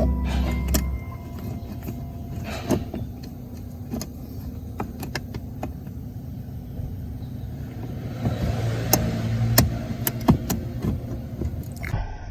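Scattered clicks and knocks of tools and parts being handled during work on a truck, over a low steady rumble, with a busier stretch of noise about two-thirds of the way in. Background music fades out in the first second.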